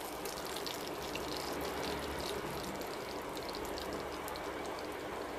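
King fish steaks sizzling steadily in shallow hot oil in a non-stick frying pan, with a light crackle of spitting oil. The fish is fully fried.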